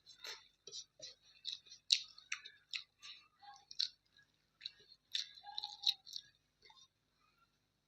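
A person chewing a mouthful of chicken curry and rice, with wet, irregular clicking and smacking mouth sounds that stop about a second before the end.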